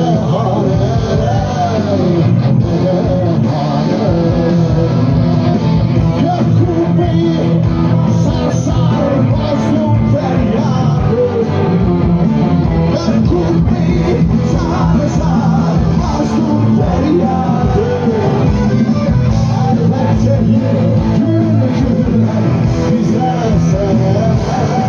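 Live rock band playing through the stage PA, with electric guitars and a male singer, heard from within the crowd.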